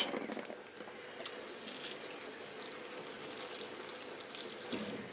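Hand pressure sprayer misting water: a steady hiss of spray that starts about a second in and stops near the end.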